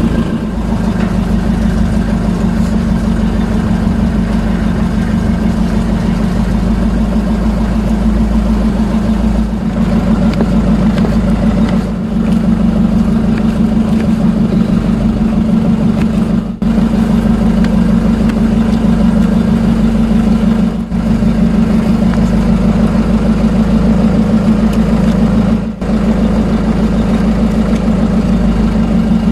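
Motorized fishing boat's (bangka's) engine running with a steady, unchanging drone, broken by a few momentary dips.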